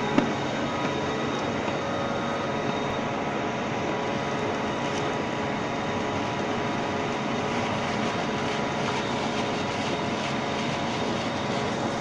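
Bagging baler machine running, a steady mechanical hum with several held tones from its motor and drive, and one sharp click just after the start.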